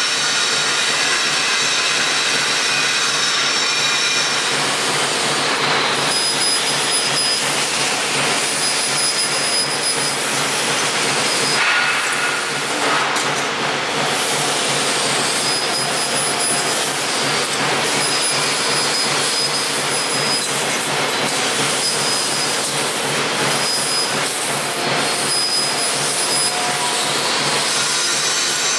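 CNC laser cutting machine cutting sheet steel: a loud, steady hiss, with a thin high-pitched whine that switches on and off again and again.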